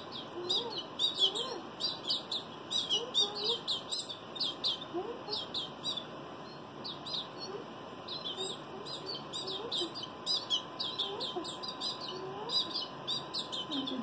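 Fledgling canaries chirping over and over in quick, short, high peeps while they are hand-fed from a stick.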